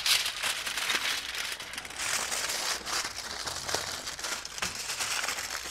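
Aluminium foil being folded and crumpled by hand around a turkey breast, a continuous crinkling and crackling.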